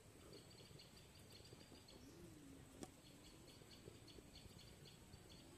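Near silence: quiet outdoor ambience with faint, rapid, high-pitched chirping in two short runs, and a single soft click about three seconds in.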